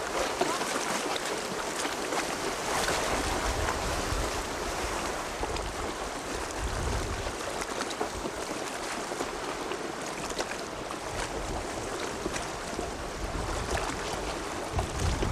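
Steady hiss of wind and choppy sea, with low rumbles of wind buffeting the microphone now and then.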